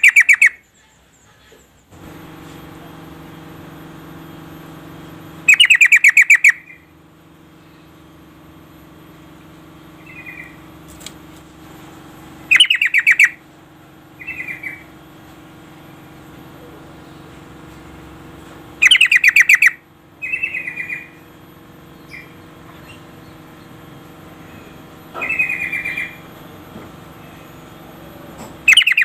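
Female yellow-vented bulbul (trucukan) calling: loud bursts of fast chattering notes, each about a second long, repeated every few seconds, with shorter, softer notes in between. A steady low hum runs underneath.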